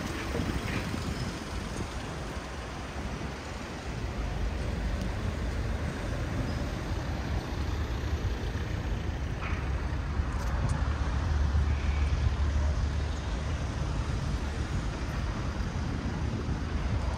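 City street ambience: a steady rumble of road traffic, with a low engine rumble from a passing vehicle growing louder about halfway through.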